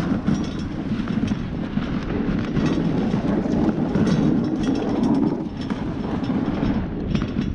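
Dog sled runners sliding over packed snow: a steady rumbling scrape with scattered rattling clicks. It is heard through a camera mounted on the moving sled.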